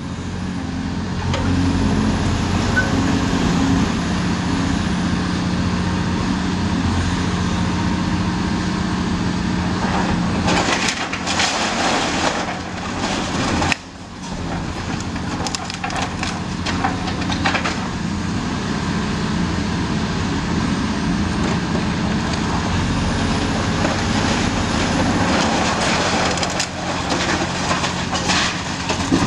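Caterpillar 336E excavator's diesel engine running steadily while its sorting grapple tears into a brick house, with masonry crunching, cracking and rubble falling. The breaking is loudest about ten to thirteen seconds in and again near the end.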